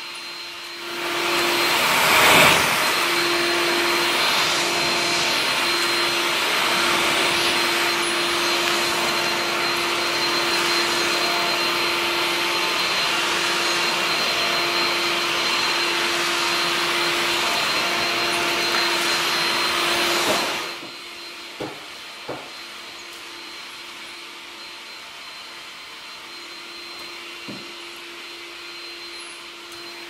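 Makita backpack vacuum running on a hardwood floor: a steady rushing motor with a constant hum and a high whine, loud for about twenty seconds, then much fainter, with a few light knocks.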